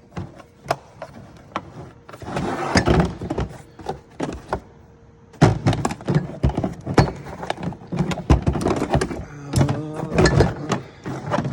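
Knocks and clatter of tools and a boxed kit being handled and moved about in a metal toolbox, with a longer shuffling noise about two seconds in and a dense run of clicks and thunks in the second half.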